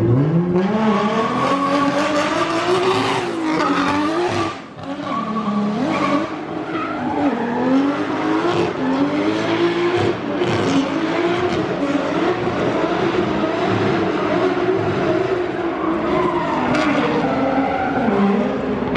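Drift car engine at high revs, its pitch rising and falling with the throttle, over continuous tyre squeal. It dips briefly about four and a half seconds in, then is back on full throttle.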